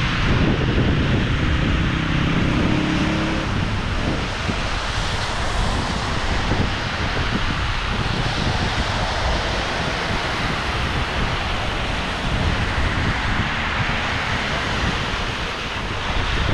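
Wind buffeting the microphone over the steady hiss of rain and car tyres on a wet road, with a low vehicle hum that fades out about three seconds in.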